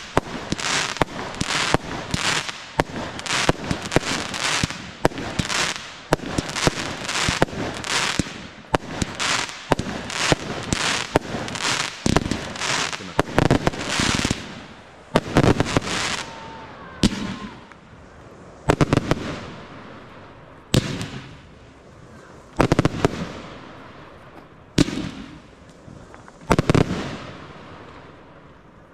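Aerial fireworks firing in a rapid barrage, shells launching and bursting about twice a second. About halfway through they change to slower single loud bangs roughly every two seconds, each trailing off as it fades.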